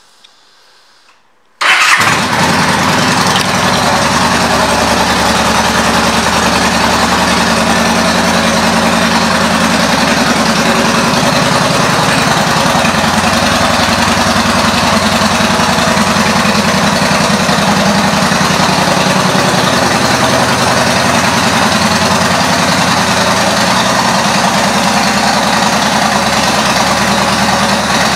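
A 2013 Yamaha V Star 1300 Deluxe's V-twin engine, fitted with aftermarket pipes and intake, starts up about two seconds in and then idles steadily and loudly.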